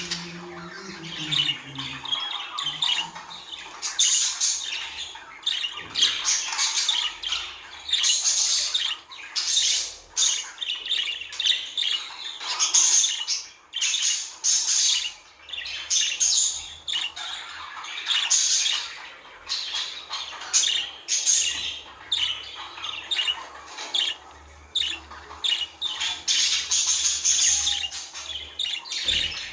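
Budgerigars chattering and warbling: a continual stream of short squawks, chirps and twittering calls, overlapping one another.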